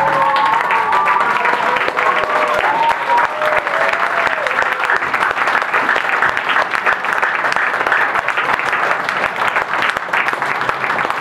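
Audience clapping steadily, a dense patter of many hands, with a few voices calling out in the first few seconds.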